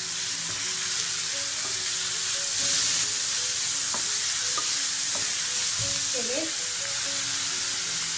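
Chopped onion, green capsicum and carrot sizzling in hot oil in a frying pan over a high flame, stirred with a wooden spatula that taps and scrapes the pan a few times around the middle.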